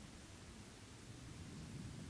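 Faint steady hiss with a low rumble: the self-noise of a camera microphone in a weather balloon payload high in the stratosphere, where the thin air carries almost no sound.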